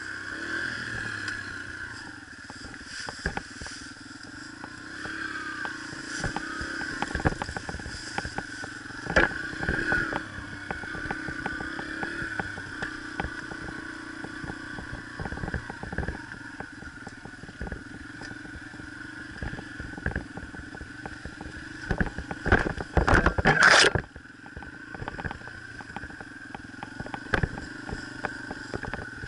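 Yamaha TT-R125's four-stroke single-cylinder engine running at a fairly steady pitch while riding, with frequent knocks and clatter from the bike going over bumps. The loudest of these is a cluster of hard hits a little past twenty seconds in.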